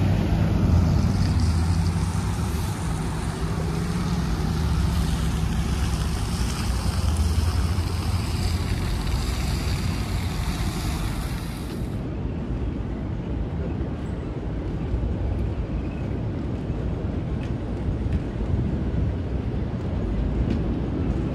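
An engine running steadily with a low hum, with wind on the microphone. About twelve seconds in the sound changes abruptly to a noisy rush of wind without the engine hum.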